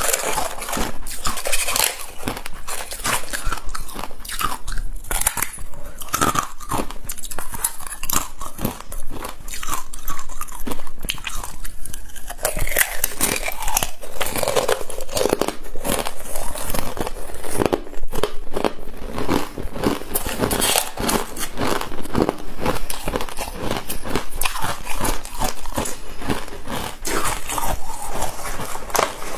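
Close-up biting and chewing of frozen ice and scraped-off freezer frost: a dense, continuous run of crisp crunches and cracks.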